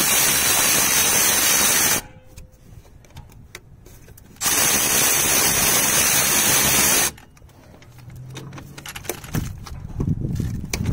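A power ratchet with a six-point socket runs out 14 mm alternator mounting bolts in two runs of steady whirring: the first stops about two seconds in, and the second runs for about two and a half seconds from about four seconds in. Quieter clicks and knocks of the tool and socket come between the runs and after them.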